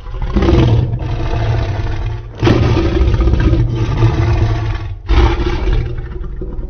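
Three long, loud creature roars in a row, built from layered lion, tiger and movie-monster roar recordings, each starting abruptly with a deep rumble underneath: the first near the start, the next about two and a half seconds in, the third about five seconds in.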